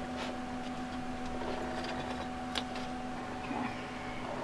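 A steady low hum, with a few light clicks of a fork against a frying pan as a flatbread is turned.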